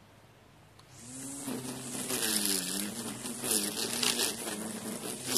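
Cordless electric string trimmer starting up about a second in and cutting grass: a motor whine that dips and recovers as the line meets the grass, with a hiss of the spinning line striking the blades.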